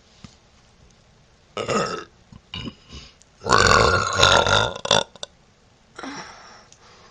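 A young woman burping close to the microphone: a short burp about a second and a half in, then a long, loud burp lasting about a second and a half.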